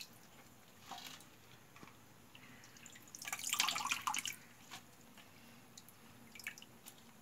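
Water splashing and dripping as handfuls of soaked spinach leaves are lifted out of a bowl of water to drain. The splashes are soft, with the loudest lasting about a second midway and a few small drips near the end.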